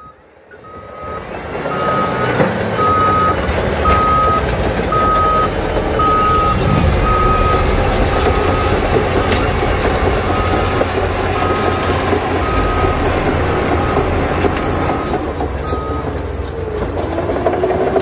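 Caterpillar crawler dozer reversing, its diesel engine running steadily after building up in the first second or two. Its backup alarm beeps about twice a second and stops a couple of seconds before the end.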